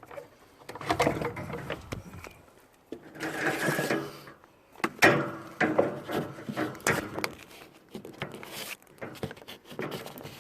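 Scrap being rummaged through and handled: an irregular run of knocks, clatters and scraping.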